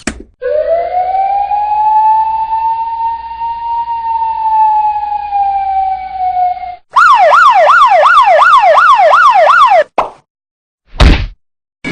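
Two siren clips back to back. The first is a single slow wail that rises, holds and then slowly falls over about six seconds. It cuts to a fast yelp sweeping up and down about three times a second for about three seconds. A short sharp burst comes near the end.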